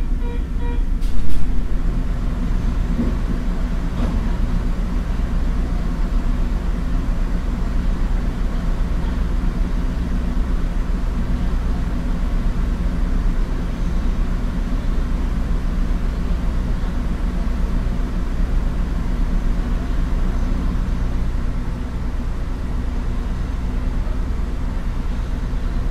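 Diesel railcar engine idling steadily while the train stands still, a low even hum, with one loud knock about a second in.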